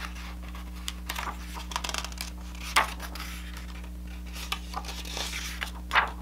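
Paper pages of a hardcover picture book being turned: soft rustling, with a sharper swish of the page about three seconds in and again near the end.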